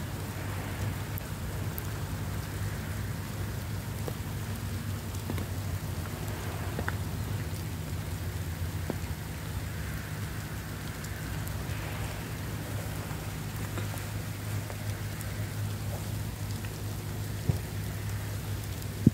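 Steady rain falling on wet pavement, over a low steady hum, with one short sharp knock near the end.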